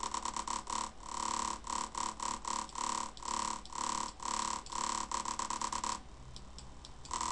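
Synthesized buzzy tone near 1 kHz from a Pure Data patch, pulsing on and off, the pulse rate changing as the patch's number boxes are dragged. The pulses stop about six seconds in, and the tone returns, steadier, just before the end.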